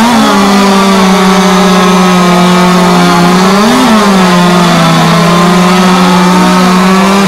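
Solo two-stroke racing chainsaw held at full throttle, cutting three discs off a log. The engine note stays steady under load, rising briefly about four seconds in.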